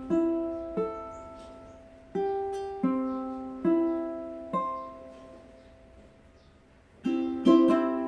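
A plucked string instrument playing a slow introduction of single notes, each ringing and fading away. After a short pause, quick strummed chords start near the end.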